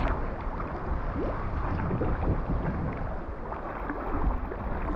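Water splashing and lapping around a sea kayak's hull and paddle as it is paddled, in small irregular splashes.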